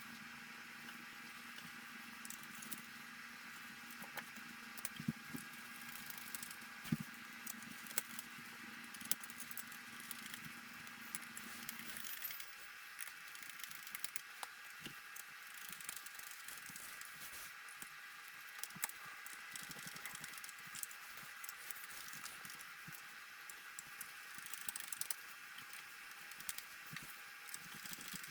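Scattered light clicks and taps of hand work on dash parts over a steady hiss, with a low hum that stops about twelve seconds in.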